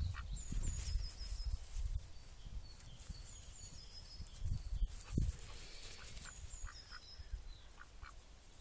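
White domestic duck quacking in short calls, several in quick succession past the middle, over a low rumble of wind.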